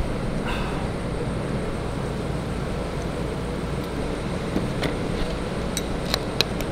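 Steady low outdoor background rumble of the kind traffic makes, with a few short sharp clicks in the last couple of seconds.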